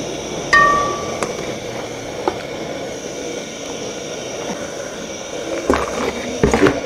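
Metal spoon clinking against a large aluminium cooking pot as sliced onions are ladled in, with one short metallic ring about half a second in and a few sharp knocks. Louder clattering near the end, over a steady rushing background noise.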